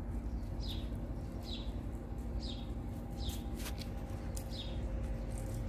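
A small bird chirping, a short falling chirp repeated about once a second, over a steady low hum.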